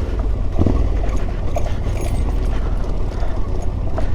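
Yamaha Ténéré 700's parallel-twin engine running at low revs, a steady low rumble, with scattered small clicks and a couple of sharper knocks from the bike going over rough stony ground.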